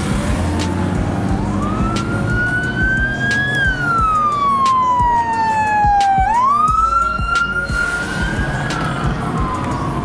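Police car siren in wail mode: one tone rising and falling slowly, dropping through the middle and then climbing sharply about six seconds in. A low rumble of car engines runs underneath.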